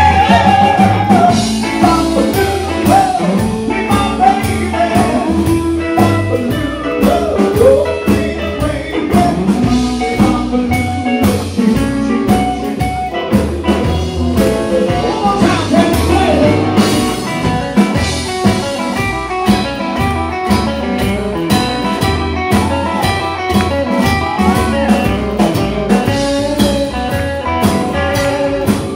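Live rock-and-roll band playing at full volume, with drum kit and upright bass keeping a steady beat.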